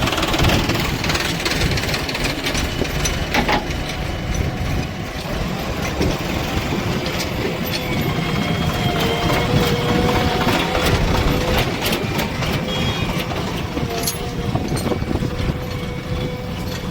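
Diesel engine of a working backhoe loader or tractor running close by: a steady low rumble with a faint wavering whine and occasional sharp knocks.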